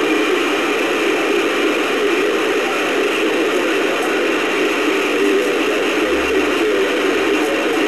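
CB radio receiver putting out a steady static hiss through its speaker, with faint warbling traces of distant skip signals mixed in.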